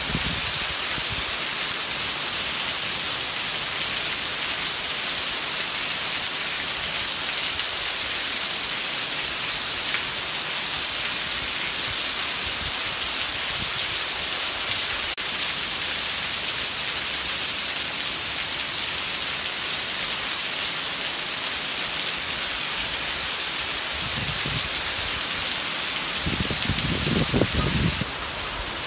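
Heavy downpour: a steady hiss of rain on the roof and paving, with water streaming off the roof edge onto the wet tiled floor. A low rumble swells briefly near the end.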